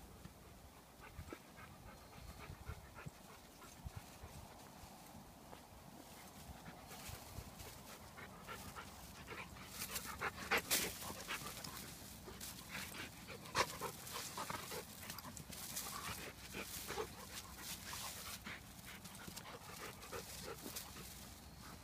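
A dog panting while it sniffs and rolls in dry grass and leaves, with irregular crackling rustles of the dry grass that grow busier about a third of the way in and are loudest in the middle.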